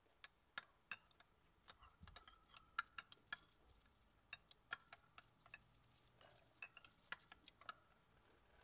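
A spoon clicking and scraping against the inside of a glass jar while scooping out chia pudding: a run of irregular light clicks that stops near the end.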